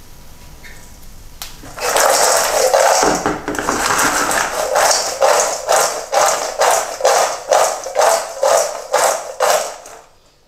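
Crisp fried pita cubes tossed in a stainless steel bowl, rattling against the metal. It starts about two seconds in with a loud rush, then goes on in quick rhythmic shakes, about two or three a second, and stops near the end. The shaking coats the hot pita croutons with salt, za'atar and sumac.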